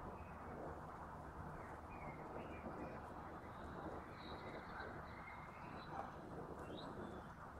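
Faint birds chirping and whistling in short calls over a steady low background rumble of outdoor noise.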